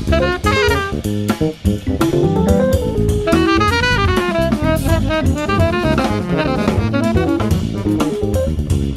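Recorded modern jazz band playing a lively tune: drum kit and bass under a quick, stepping melodic line, played back over a video call.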